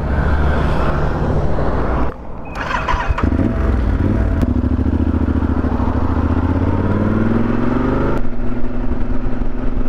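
Yamaha Super Ténéré 1200's parallel-twin engine running as the motorcycle rides off, its pitch rising steadily for a few seconds as it accelerates. The sound changes abruptly twice, about two and eight seconds in.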